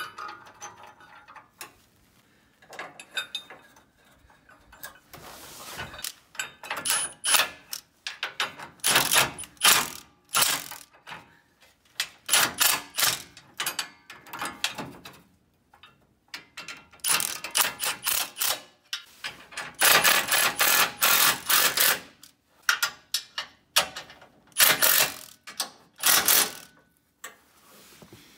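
Milwaukee cordless impact wrench driving bolts up into a truck frame: many short bursts of rapid hammering, stopping and starting as each bolt is run in and snugged.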